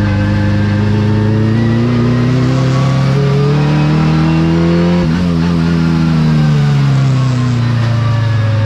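Race car engine heard from inside the cabin, revving up steadily under acceleration, with a sudden drop in pitch about five seconds in as it shifts up a gear, then falling in pitch as the car slows.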